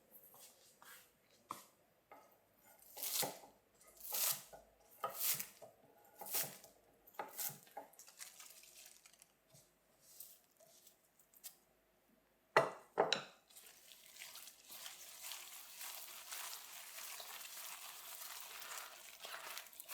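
Kitchen food-preparation sounds: a run of swishing strokes about once a second, then two sharp knocks, followed by a steady hiss.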